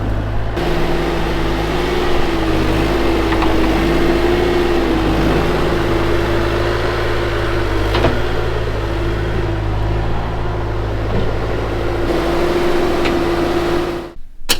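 Bobcat skid steer's diesel engine running steadily, with a steady whine over the engine note, as the machine is driven off the trailer. The engine is shut off abruptly near the end.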